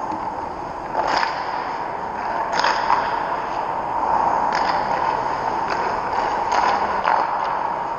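Ice rink ambience: a steady hiss with sharp scrapes and knocks scattered through it, roughly one every second or so.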